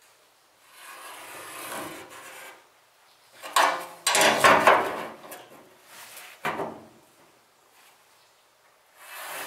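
Metal speed square scraping and rubbing against the steel inner side panel of a Ford F100 truck bed as it is set in place for marking. It comes in several strokes, the longest and loudest about four seconds in.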